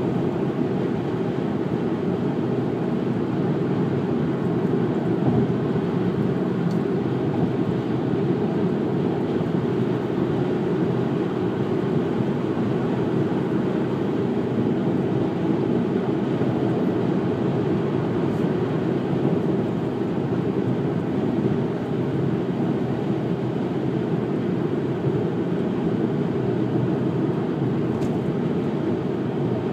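Car cruising at highway speed: a steady, even low rumble of road and tyre noise.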